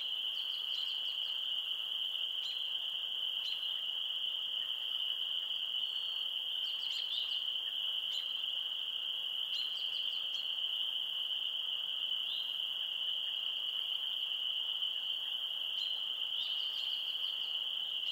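A chorus of frogs calling: a steady, unbroken high trill, with short runs of rapid clicking calls breaking through every second or two.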